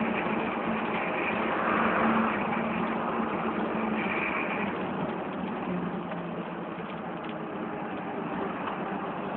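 A vehicle's engine running steadily on the move, with road and wind noise. The engine note drops a little about halfway through, and the sound gets slightly quieter.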